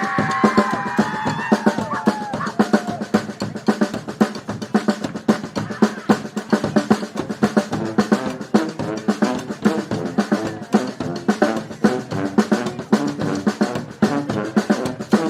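A street brass band's drum section playing a fast snare-and-bass-drum break. The horns' last held notes die away in the first couple of seconds, leaving the drums on their own.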